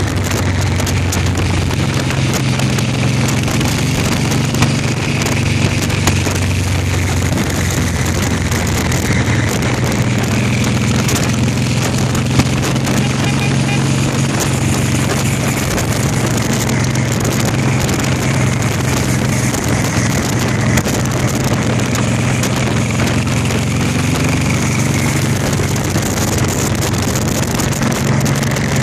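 Motorcycle engine running steadily while riding along, with a steady low drone and wind noise on the microphone.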